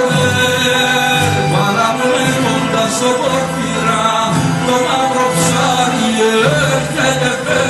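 Music from a song's instrumental passage: held low bass notes that change about every second under a melody line that bends and wavers.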